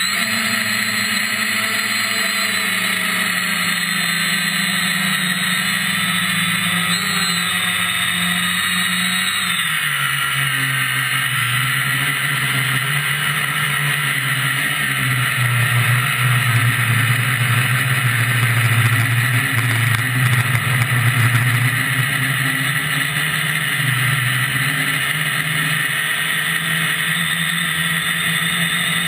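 Quadcopter's MT2206 brushless motors and propellers whining steadily in flight, heard from the onboard camera. The pitch drops suddenly about ten seconds in as the throttle changes, and the sound grows louder for a stretch past the middle.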